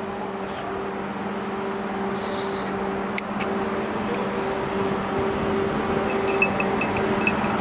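A steady low mechanical hum, with a short high hiss about two seconds in.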